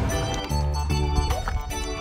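Background music with plucked-string notes.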